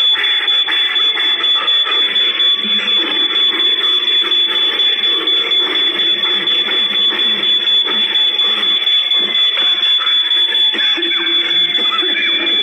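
Smoke alarm sounding a steady high-pitched tone, set off by burning food. Under it runs a lower tone that slowly falls in pitch and climbs back every few seconds.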